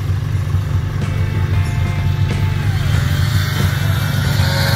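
Two-stroke 600 snowmobile engine running as the sled rides through deep snow, under background music.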